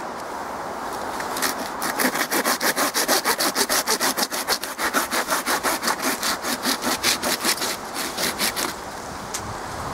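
Folding pruning saw cutting into the resin-rich fatwood of a fallen pine log in quick, even strokes, about five a second. It starts about a second and a half in and stops near the end.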